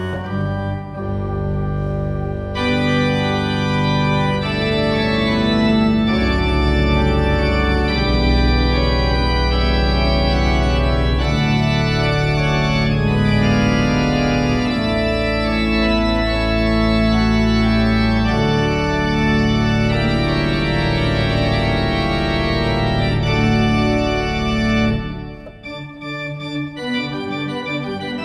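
Pipe organ played loudly in full sustained chords over deep pedal bass notes. About 25 seconds in, the sound breaks off and rings away in the hall's reverberation, and quieter playing follows.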